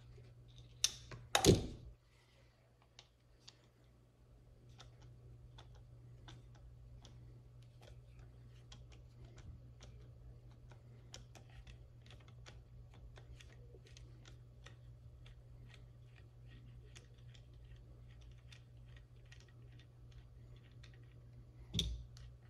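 Two loud knocks about a second in as the shotgun action is handled. Then a long run of light, irregular metallic clicks as a screwdriver turns a screw in the Crescent Model 60's action, and another knock near the end.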